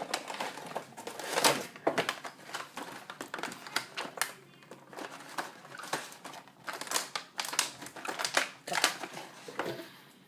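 Taped cardboard packaging being worked open by hand: irregular crinkling, crackling and tearing of tape and card.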